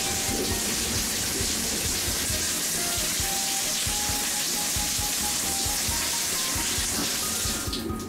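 Shower spraying water steadily in a sleeper train's compact shower room, cutting off sharply near the end. Faint background music underneath.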